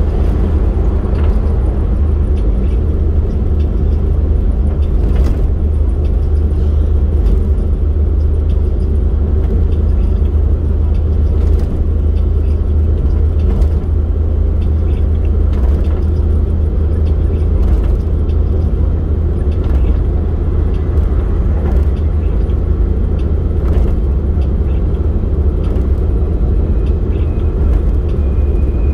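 Steady road and vehicle rumble from a vehicle driving along a road, with occasional light clicks.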